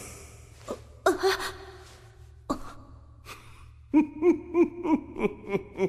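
A man's voice making non-speech sounds: a short breathy gasp about a second in, then from about four seconds a low chuckling laugh in short pulses, about three a second.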